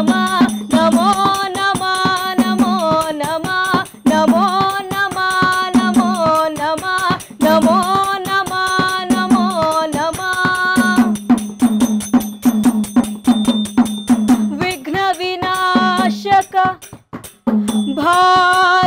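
A woman sings a devotional invocation song to Ganesha in long, drawn-out melodic phrases, accompanied by steady dholak hand-drum strokes. The voice breaks off briefly near the end, then comes back.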